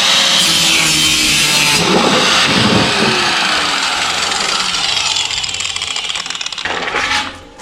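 Electric power saw cutting, a loud steady run of machine noise that stops suddenly near the end.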